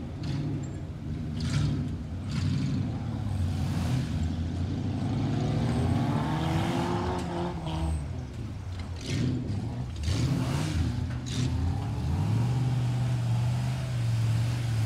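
Off-road buggy's engine revving in repeated surges as it claws up a loose dirt climb, the pitch climbing and dropping, then held at a steady high rev near the end.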